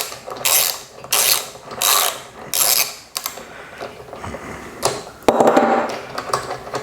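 Socket ratchet clicking in short back-and-forth strokes while turning a spark plug out of a Troy-Bilt lawn mower engine. The strokes come about 0.7 s apart over the first three seconds, followed by a longer rattle about five seconds in.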